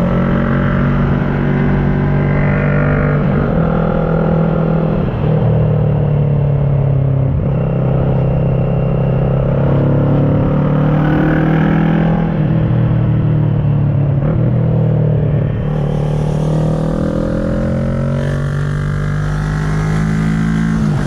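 Kawasaki ER-6n's 649 cc parallel-twin engine through an SC Project carbon exhaust, pulling through the gears under load. The engine note rises in pitch several times, dropping back at each gear change.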